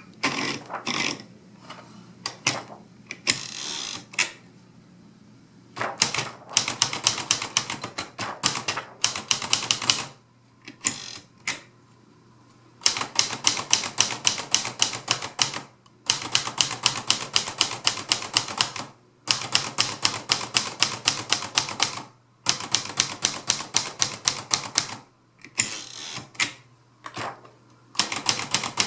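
Hermes Rocket manual portable typewriter being typed on: rapid runs of sharp key and typebar strikes, several a second, broken by short pauses and occasional single knocks.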